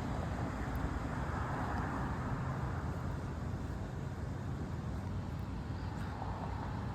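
Steady low outdoor rumble of street traffic, with a vehicle swelling past and fading between about one and three seconds in, and another coming up near the end.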